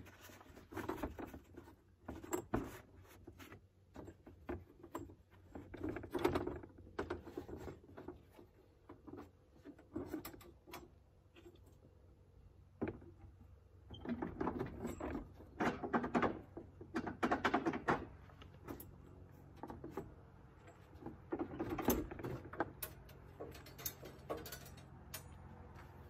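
Old steel band blade being worked off the band wheels of a Norwood HD36 sawmill: irregular metallic clicks, knocks and rattles as the blade and covers are handled, busiest in a few clusters.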